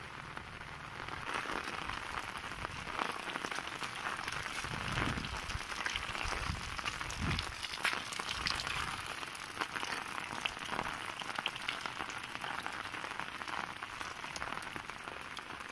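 Steady rain falling, an even hiss with many small drop ticks.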